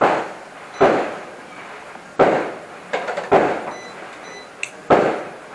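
A series of about six sharp bangs or knocks at uneven intervals, each ringing out briefly before the next.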